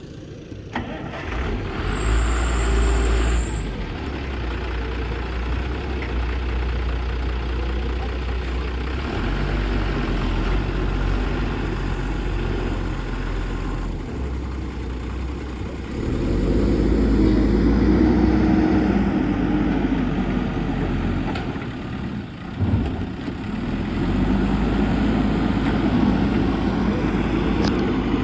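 JCB backhoe loader's diesel engine running, working harder and louder about halfway through and again near the end. A short high whine sounds near the start, and there is a brief knock shortly before the engine picks up again.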